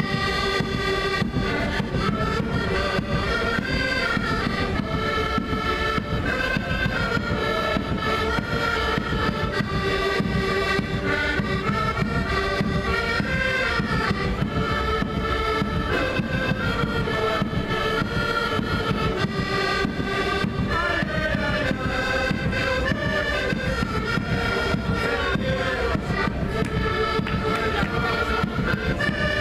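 Several accordions playing a tune together, with held chords under melody notes that move in quick steps.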